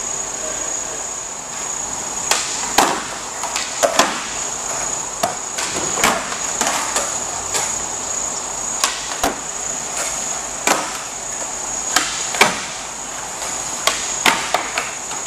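Skateboards popping and slapping down on a concrete floor during flatground tricks: about twenty sharp, irregular wooden clacks of tails and boards striking the ground, over a steady high hiss.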